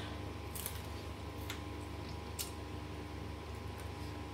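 Faint eating sounds: a few brief, crisp clicks, about one a second, as fried salted fish is picked apart by hand and chewed, over a steady low hum.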